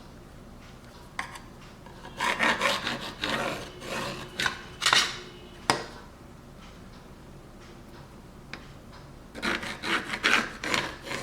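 A marking tool scratching lines along a ruler in groups of short strokes, with a quiet pause in the middle and a single click shortly before it.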